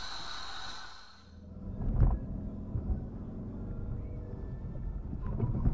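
Vehicle rumble as picked up by a dashcam: a steady road hiss fades out about a second in, giving way to a low rumble with a single thump about two seconds in.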